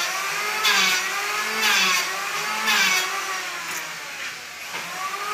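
A 450-watt electric hand planer running and shaving wood in repeated passes about once a second. Its motor pitch dips as each pass bites. After three passes there is a lull of about two seconds before the next cut.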